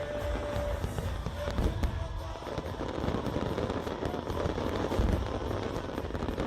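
Large fireworks display: a dense, continuous rumble of shell bursts with rapid bangs and crackling.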